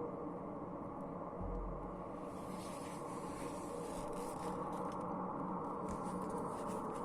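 Steady low industrial rumble with a faint hum from a coal-fired power station. From about two seconds in, light scraping and rustling noises come and go over it.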